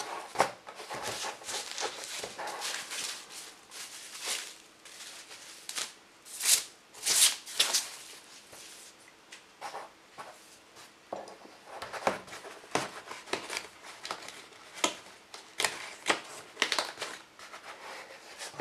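Packaging rustling and crinkling in irregular bursts as a thin LED tracing pad is lifted out of its cardboard box and handled, loudest about six to seven seconds in.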